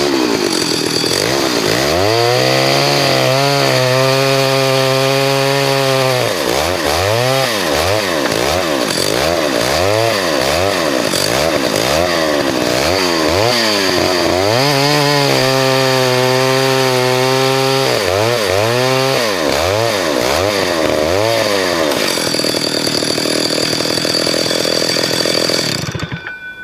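1974 Stihl 075 AV 111cc two-stroke chainsaw revved up and down again and again, held at high speed for a few seconds twice while cutting small logs. It runs more steadily near the end, then cuts off suddenly.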